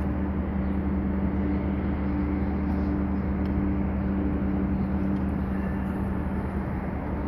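A steady low machine hum with a few fixed pitches, running unchanged throughout.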